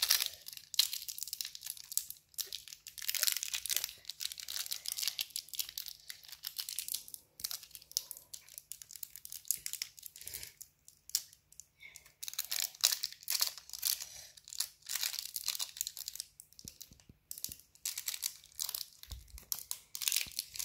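Plastic candy wrapper being torn open and crinkled by hand, in quick irregular bursts of crackling with a few short pauses.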